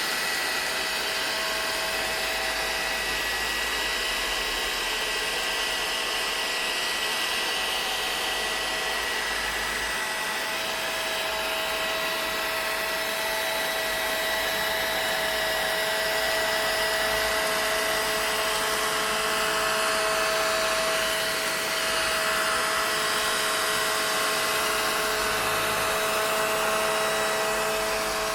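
Vacuum cleaner running steadily: an even rush of air with a constant whine held through it.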